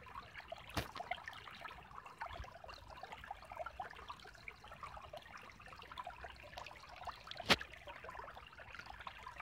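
Spring-fed woodland creek trickling and babbling over a low rock ledge, full of small bubbling plinks. Two sharp clicks stand out over the water, one about a second in and a louder one near the end.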